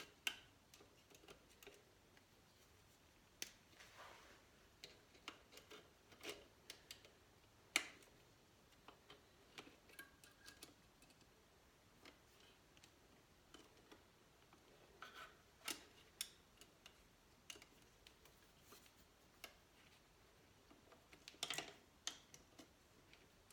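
Faint, scattered metallic clicks and taps of a cotter pin being bent and worked into place on a dirt bike's foot peg pivot, with a sharper click about a third of the way in and a short cluster of taps near the end.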